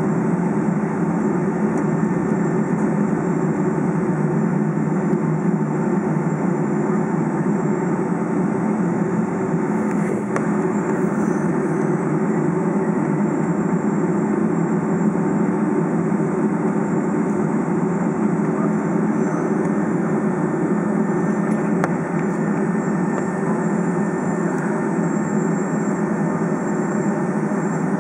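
Steady cabin noise inside a Boeing 757 taxiing on the ground: the jet engines at taxi idle together with the air-conditioning, an even hum and whoosh that does not change.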